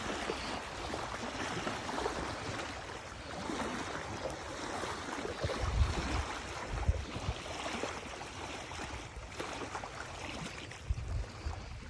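Steady rush of moving water mixed with wind, with gusts buffeting the microphone about six seconds in and again near the end.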